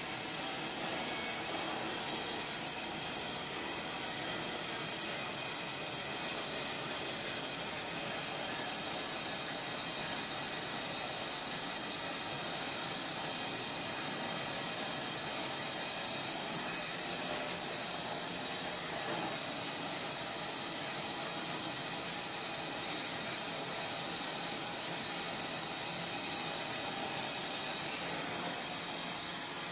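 Gas torch flame burning with a steady hiss as it heats a bronze sculpture for hot patina work.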